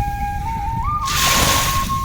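Background music, a single flute-like melody line, over lake water washing onto the shore. A wave rushes in about a second in.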